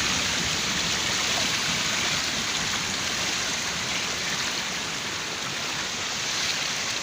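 Fast-flowing rainwater rushing along a swollen stream: a steady, even rush of water.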